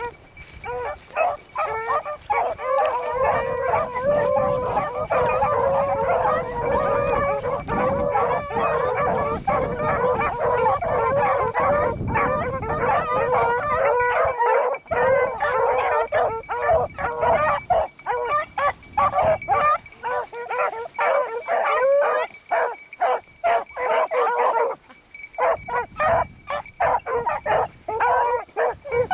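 A pack of beagles baying on a rabbit's trail, many voices overlapping in a continuous chorus that thins to separate barks in the last third.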